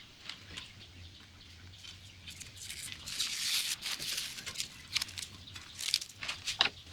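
Masking tape and paper being peeled off freshly painted steel wheels: irregular crinkling and tearing with scattered clicks, and a longer rustle about three seconds in.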